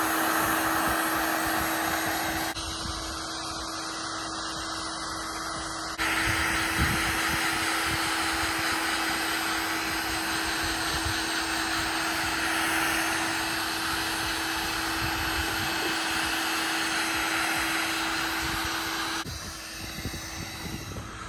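Handheld electric heat gun running steadily, its fan blowing with a constant hum as it heats the adhesive tape of a spoiler extension lip so the lip bonds to the spoiler. The noise drops away near the end.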